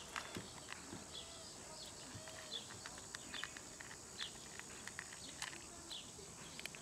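Kittens eating at close range: faint, irregular clicks and ticks of licking and chewing wet cat food and dry kibble. Small birds chirp in the background.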